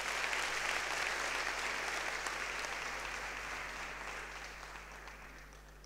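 Large audience applauding, strongest at first and dying away over about five seconds.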